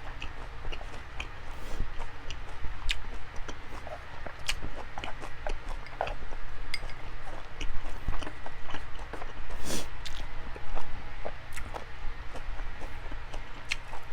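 A person chewing meat with the mouth close to the microphone: many small wet clicks and smacks.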